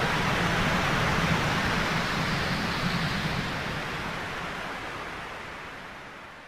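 A wash of synthesized noise, like wind or surf, with a low fluttering hum underneath, from the close of an electronic chill-out track; it holds steady for about three seconds, then fades out gradually.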